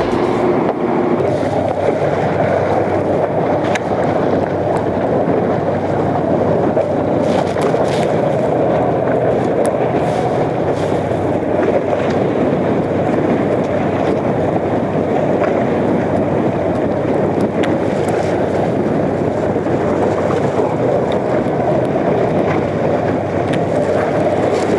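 Steady wind buffeting the microphone over the rush of choppy sea on an open fishing boat.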